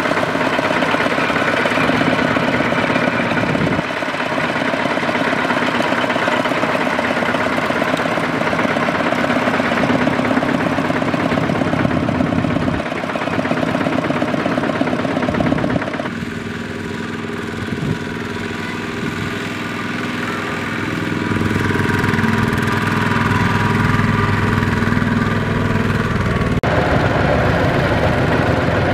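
Single-cylinder diesel engine of a Kubota two-wheel walking tractor running as the tractor churns through mud, its sound changing abruptly a few times.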